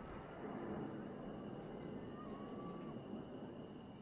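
Lull while a large firework shell climbs after its launch: the launch boom dies away at the start, leaving low background noise and a high chirping that repeats in short trains of five or six evenly spaced pips.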